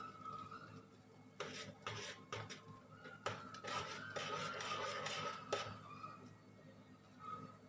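A metal spoon stirring and scraping through thick coconut milk against the bottom of a large aluminium wok, as the milk is cooked down to make coconut oil. The scraping comes in quick strokes for several seconds, starting about a second and a half in, and eases off near the end.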